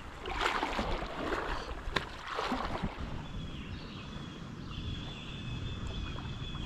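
Kayak paddle strokes: the blade dipping and splashing in calm river water, a few surges in the first three seconds, over a low rumble of wind on the microphone. From about three seconds in, a thin steady high tone carries on.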